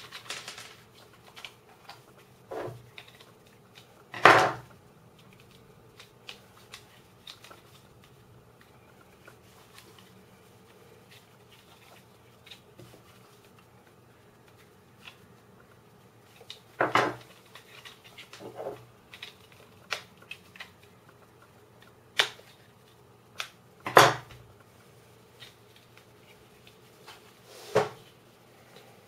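3D-printed plastic puzzle pieces being handled and prodded with a small screwdriver while the last corner support piece is worked into place: irregular small clicks and scrapes, with about five louder knocks spread through.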